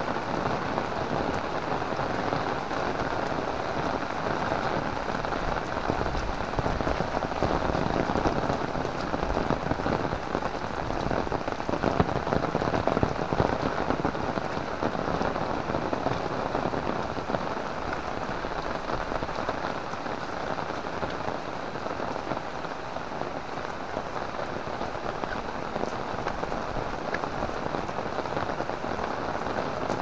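Heavy rain pouring steadily, a dense continuous hiss and patter, swelling a little in the middle.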